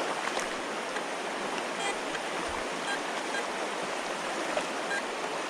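Shallow mountain creek water running steadily over rocks.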